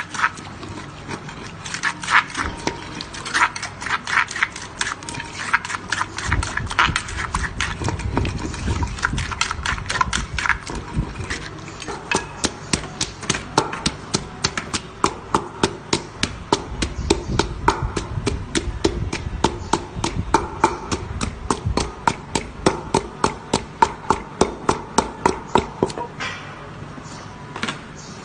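Wooden pestle pounding papaya salad in a clay mortar: steady knocks about three a second, stopping about two seconds before the end.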